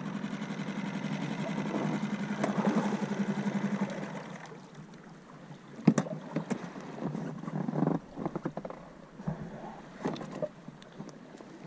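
Small outboard motor pushing an inflatable dinghy with a steady hum, dying away about four seconds in as the boat runs into the shallows. It is followed by a few sharp knocks and splashing as the dinghy reaches the beach and someone climbs out.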